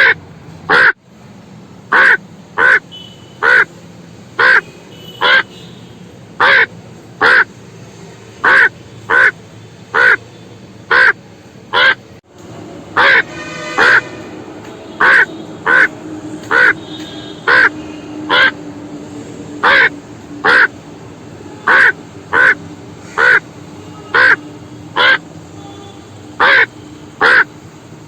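Crow cawing over and over, one short harsh caw about every three-quarters of a second, with a brief break near the start and another near the middle.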